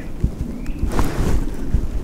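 Wind buffeting the microphone: irregular low rumbling thumps, with a rushing gust about a second in.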